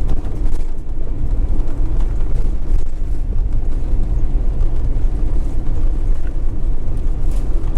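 Steady road and engine rumble heard from inside a motorhome's cab while driving.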